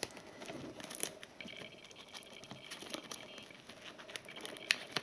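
Plastic shrink-wrap on a cardboard DVD box set crinkling and crackling faintly as fingers pick at it and pull it taut, with scattered small ticks and a sharper click near the end.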